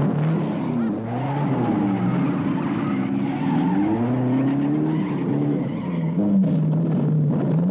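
Motor vehicle engines revving, with several pitches overlapping and repeatedly rising and falling.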